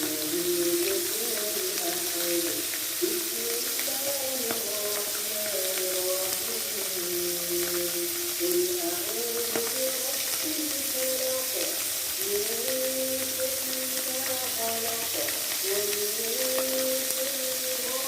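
Salted fish frying in hot oil, a steady sizzle, with a background music melody over it.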